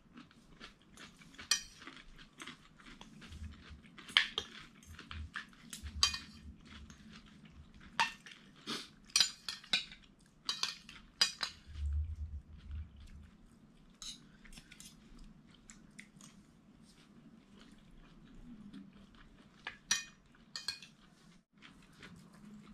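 Forks and spoons clinking and scraping against plates during a meal, in scattered, irregular sharp clinks, with a few dull low knocks among them.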